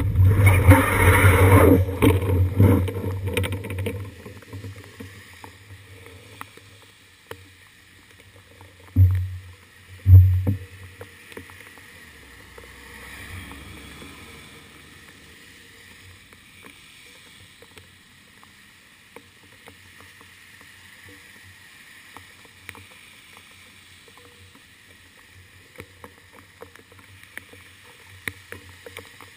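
Muffled low rumble of a bicycle on a wet road, heard through a seat-post-mounted GoPro Hero 2, fading out over the first few seconds as the bike stops. Then two dull thumps about nine and ten seconds in, and a long stretch of faint hiss with scattered small ticks from rain.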